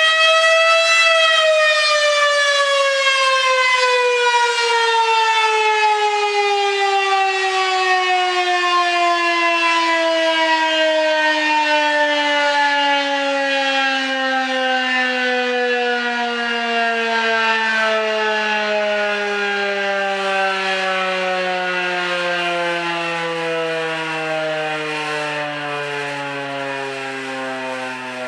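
Federal Signal 2001-130 DC-powered electromechanical outdoor warning siren reaching the top of its pitch about a second in, then winding down. Its tone falls slowly and steadily and its sound gradually fades: the coast-down half of a single test cycle.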